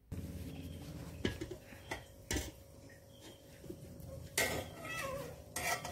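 Hand rustling through coarsely ground wet rice in a steel bowl, with a few sharp knocks and clinks of metal on metal. From about four seconds in, a louder scraping as dal paste is scraped out of a mixer-grinder jar into the bowl.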